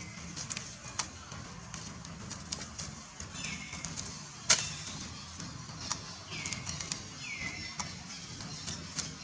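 Outdoor ambience: three short high calls, each sliding down in pitch and then levelling off, with scattered sharp clicks and rustles in dry leaves. The loudest sound is a single sharp snap about four and a half seconds in.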